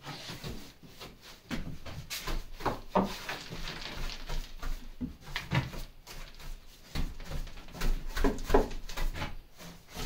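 Broom bristles sweeping and scraping across the floor and up a wooden wall in irregular strokes, some harder than others.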